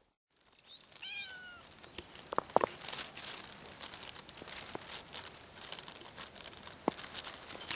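A cat meows once, a short call about a second in, with a fainter chirp near the end, amid scattered rustling and light clicks.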